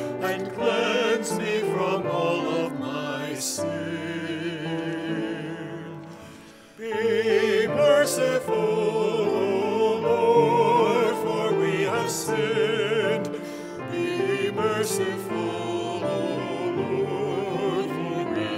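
Mixed choir singing sustained phrases with vibrato; one phrase fades away about six seconds in and the next begins loudly just after.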